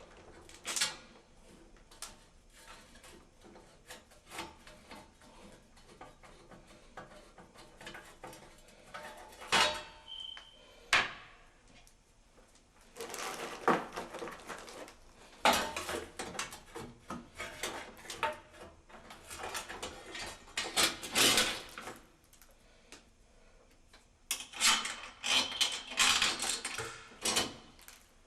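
Metal parts being handled: irregular clinks, knocks and clatter, coming in busy clusters about halfway through and again near the end.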